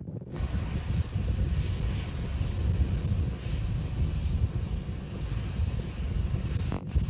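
Starship SN8's Raptor rocket engines in flight, heard as a steady, loud low rumble. It comes in sharply just after the start and drops out for a moment near the end.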